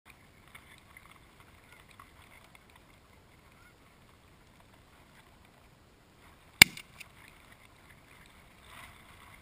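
Geese honking faintly on and off, with a single sharp, loud shotgun shot about two-thirds of the way through.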